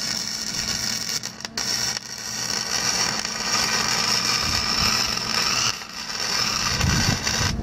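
Arc welding on thick-wall square steel tube: a steady sizzling hiss from the arc, broken briefly a few times as the weld pauses.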